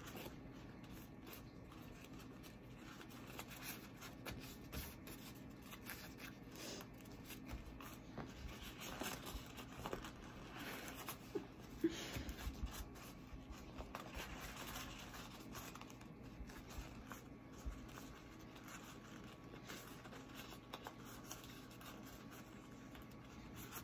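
Faint rustling and crinkling of blue sterilization wrap being folded around surgical instruments and smoothed flat by hand, with one sharper crinkle near the middle.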